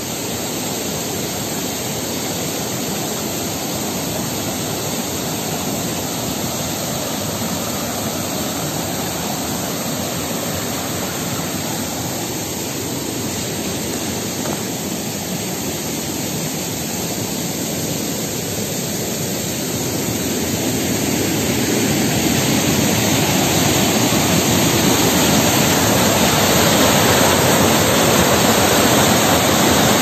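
Waterfall rushing steadily, growing louder about two-thirds of the way through.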